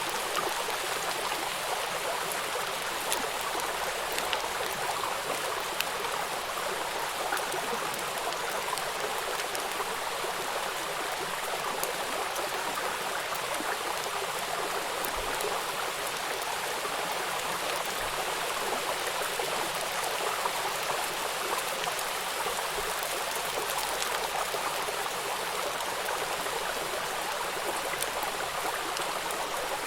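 Steady rain: an even hiss of falling water with faint scattered drop ticks.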